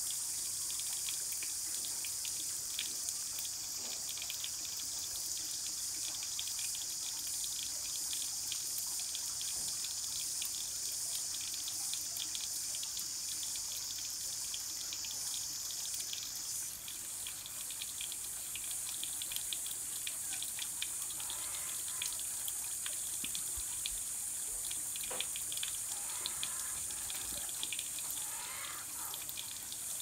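Kookaburras splashing in a bird bath: small splashes and drips over a steady high-pitched hum of insects. The hum shifts about halfway through.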